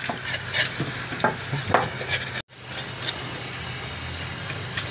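Tap water running onto meat in a stainless-steel sink while a knife scrapes the singed skin of a piece of wild boar, with a few short scraping strokes in the first two seconds. The sound drops out for an instant about two and a half seconds in, then the water runs on steadily.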